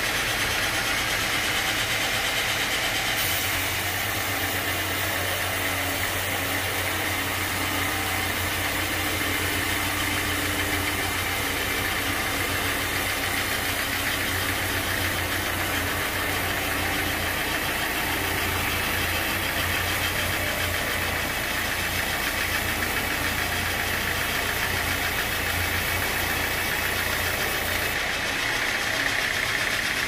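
Band sawmill running and sawing a large teak log, a steady machine noise. The sound turns harsher and fuller about three seconds in and eases back near the end.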